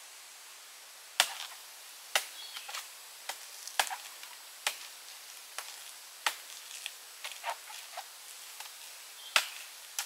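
Bamboo being chopped with a blade: sharp, irregular strikes, the loudest about once a second with lighter taps between, some with a brief ringing, over a steady faint hiss.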